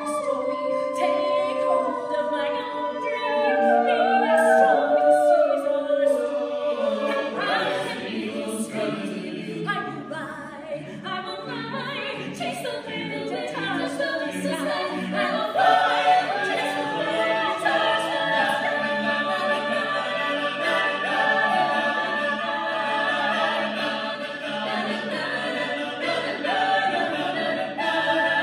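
A mixed a cappella vocal group of about eight men and women singing in close harmony without instruments, the chord swelling fuller after the first few seconds.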